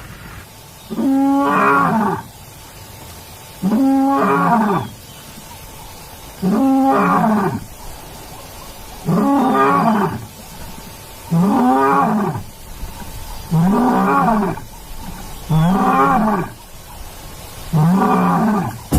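A male lion's roar broadcast from a loudspeaker: a bout of eight long calls about two and a half seconds apart, each rising and then falling in pitch.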